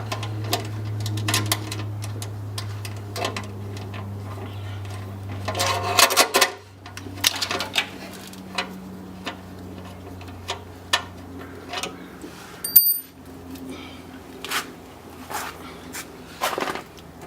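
Irregular metallic clicks, knocks and clinks from hand tools tightening bolts on a car's battery tray, with one sharp ring of metal about thirteen seconds in, over a steady low hum that fades after about six seconds.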